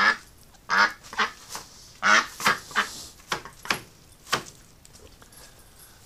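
A duck quacking: a run of about ten short, loud quacks that stops about four and a half seconds in.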